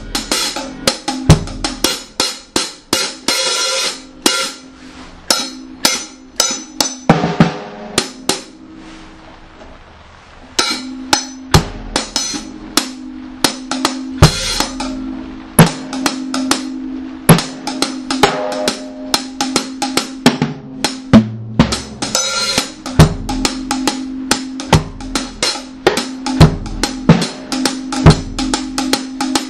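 Reggae one-drop dub drum track: a drum kit with snare, hi-hat and cymbal playing a steady rhythm. The drums fade away about eight seconds in and come back about two seconds later over a held low note.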